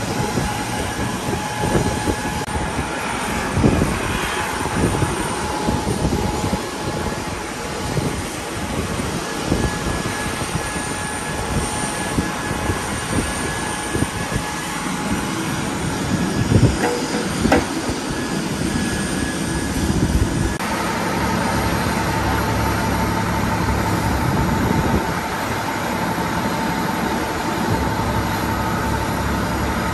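Aluminium loading ramps clanking and knocking as they are laid and shifted on the concrete, over a steady machine hum. About two-thirds of the way through it gives way to a fire truck's engine running steadily up close, with an even low pulse.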